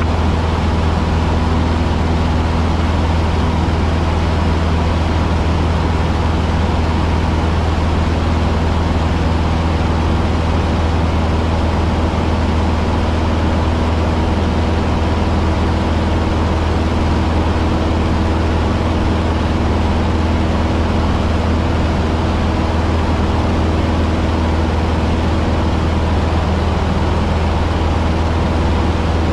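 Cessna 150's four-cylinder Continental O-200 engine and propeller droning steadily, heard from inside the cockpit, with no change in power.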